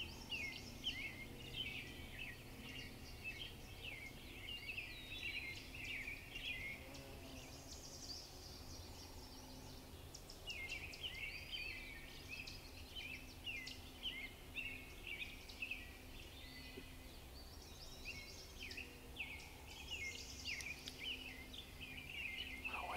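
Songbirds singing together in a busy chorus of quick, high chirps and trills overlapping one another, thinning briefly twice.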